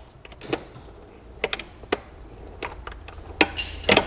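Light, irregular metallic clicks and clacks of a Kawasaki GPZ900 gearbox's shift drum being turned by hand, its shift forks sliding the gears along the shafts, with a quick cluster of clacks near the end.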